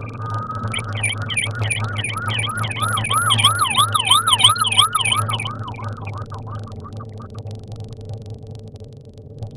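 Police car siren in a rapid yelp, about three to four sweeps a second, growing louder and then fading out about six seconds in. It is heard from inside a following car over the steady low drone of the engine and road noise.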